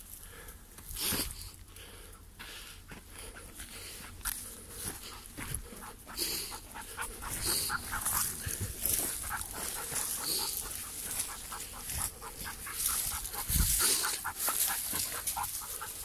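A dog panting quickly and rhythmically, mixed with the crunch of footsteps on dry leaves and twigs brushing past.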